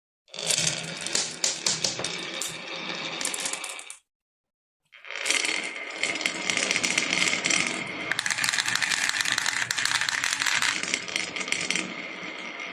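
Many marbles rattling and clicking as they roll down a marble run. The rattling stops dead about 4 s in and resumes about a second later.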